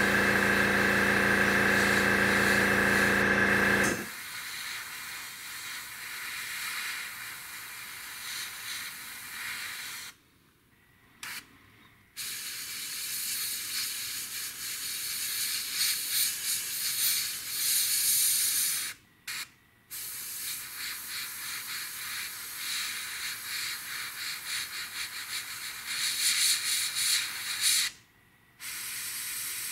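Air compressor humming for about the first four seconds, then cutting off. After that a gravity-feed airbrush spraying paint, a steady hiss that stops three times briefly as the trigger is let go.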